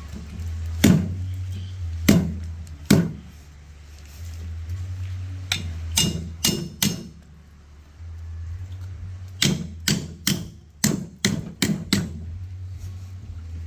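A machete chopping through a large fish on a cutting block: a series of sharp chops, a few spaced out early on and then in quick runs of two to four a second, over a steady low hum.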